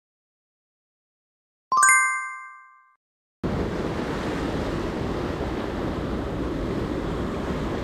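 A single bright chime rings out about two seconds in and dies away within a second. About three and a half seconds in, the steady wash of sea surf starts abruptly, with wind on the microphone.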